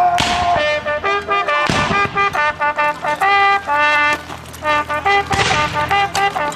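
A brass bugle playing a military call: a string of short notes and a few held ones. About three sharp bangs cut across it, one at the start, one just under two seconds in and one about five seconds in.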